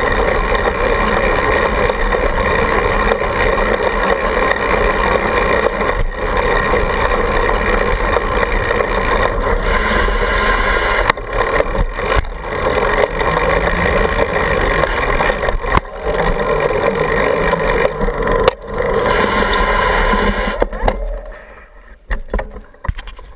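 Giant Trance mountain bike rolling along pavement, heard from a camera clamped to its rear stay: a steady rush of wind and tyre noise with a few sharp knocks from the frame. The noise dies away near the end as the bike comes to a stop.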